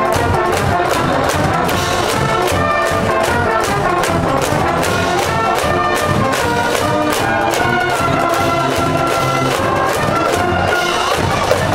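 A school cheering brass band playing a fight song in the stands: trumpets and trombones over a steady drum beat.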